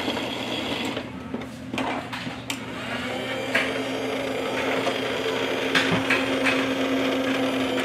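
Small electric motor of a battery-operated toy garbage truck whirring steadily as its lift arm raises and tips the bin, with a few sharp plastic clicks.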